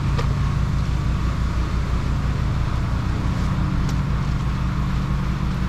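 A motor vehicle's engine running steadily with an even, low throb.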